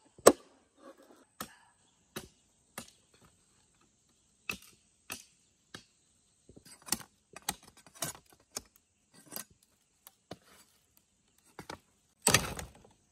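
Irregular sharp knocks and clicks of hand tools working bamboo, spaced unevenly, with a louder burst lasting about half a second near the end.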